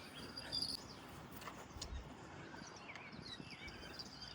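Faint outdoor ambience: small birds chirping in short calls over a steady high insect drone, with a few light clicks.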